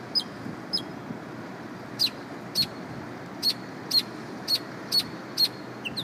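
A small songbird perched atop a street-light pole singing a series of short, sharp, high notes, each slurring downward, repeated roughly twice a second. After the first two notes there is a pause of about a second, and the last note is lower.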